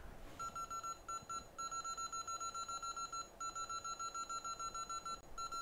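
Rapid electronic beeping from a piece of repair-bench equipment: short, high, identical beeps about seven a second, with a few brief pauses.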